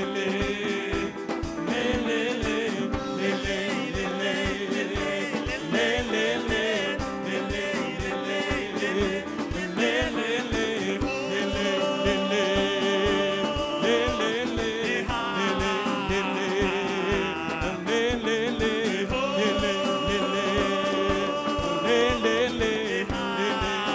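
Live band playing an upbeat song with a steady drum beat, a lead singer's voice over it holding long notes and sliding through runs.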